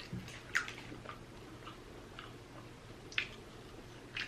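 Close-miked mouth smacks and wet chewing of someone eating, a handful of short irregular clicks, the sharpest about half a second and about three seconds in.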